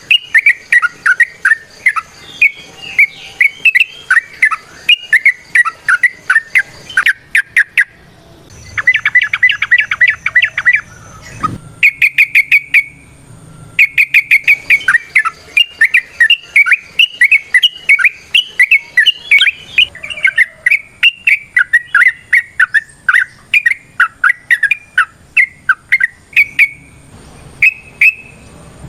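Yellow-vented bulbul (trucukan) singing a long, rapid, varied chattering song of quick whistled notes, with a burst of very fast repeated notes about nine seconds in and a brief pause soon after.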